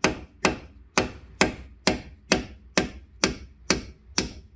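A hammer tapping steadily, about two sharp strikes a second, each with a short ring, driving a pad-retaining pin home in a Brembo six-piston front brake caliper.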